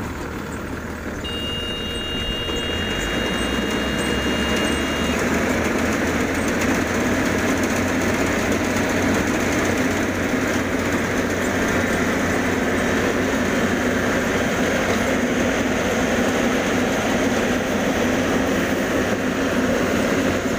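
Yanmar YH850 rice combine harvester running steadily under load as it cuts and threshes: a loud, even mix of diesel engine and the churn of its header and threshing machinery. A thin, high steady whine sounds over it for a few seconds near the start.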